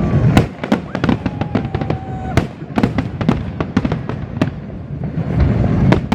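Fireworks going off: a rapid, irregular series of sharp bangs and crackles, with deeper booms at the start and near the end.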